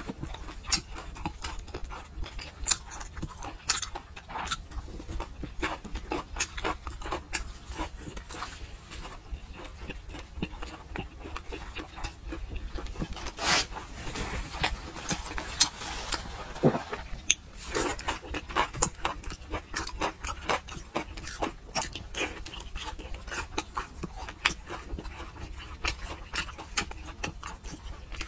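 Close-miked mouth sounds of a person eating fatty braised pork: an irregular run of chewing, lip-smacking and sticky clicks throughout, loudest about halfway.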